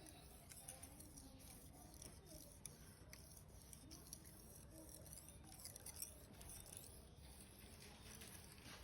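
Near silence: faint room tone with scattered light ticks and scrapes, one slightly more distinct about six seconds in.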